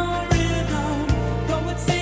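Music: a wavering, vibrato-laden melody over a steady bass, with a drum hit about every 0.8 seconds.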